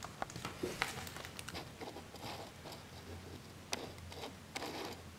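Faint crinkling and scattered small clicks of a taped plastic acetate sheet with kitchen foil on it being handled.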